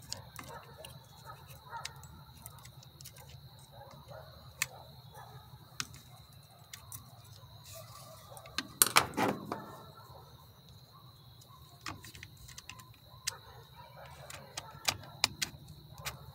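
Light clicks and ticks of small metal and plastic parts and a hand tool as a carburetor is fitted to a Stihl MS 192 T chainsaw, with a louder clatter about nine seconds in, over a faint steady hum.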